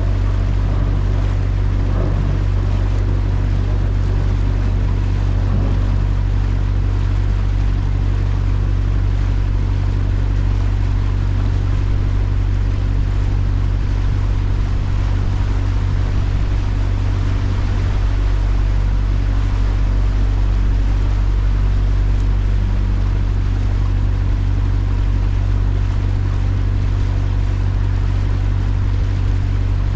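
Boat taxi's engine running at a steady, even hum, with a constant rush of water alongside.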